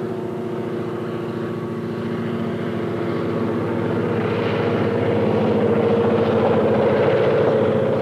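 Diesel locomotives passing close by, their engines running with a steady drone that grows louder as the units draw alongside.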